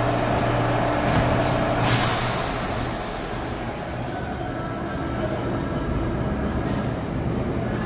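New York City subway train at a station platform: a steady hum, with a sharp hiss of air about two seconds in that fades over about a second, then steady running noise.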